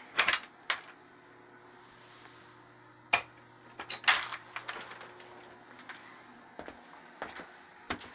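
Irregular sharp clicks and knocks of things being handled, a handful in all, the loudest near the start, just after three seconds and around four seconds. Under them a low steady hum stops about two-thirds of the way through.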